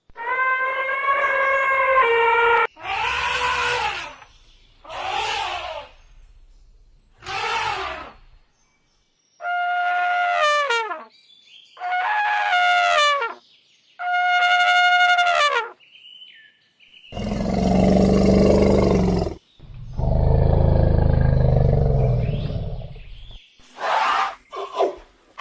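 Elephant trumpeting: about seven separate trumpet calls of a second or two each, with short gaps between them. Two longer, much deeper calls follow past the middle, then a few short calls near the end.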